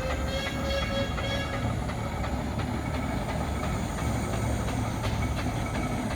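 Steam engine running with a steady rumble and light clicking, and a brief pitched tone in the first second and a half.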